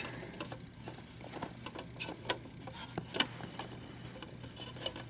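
Scattered light clicks and ticks of a plastic dash-kit bracket and small screws being handled while a screw is started by hand, over a steady low hum.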